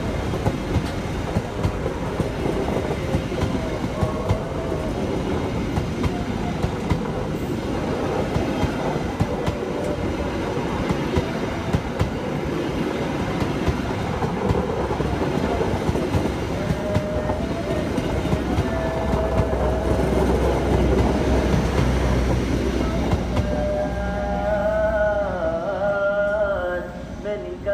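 A train passing at close range, with steady rail noise and a run of wheel clicks, and a deep rumble for several seconds past the middle. Music with singing comes in near the end.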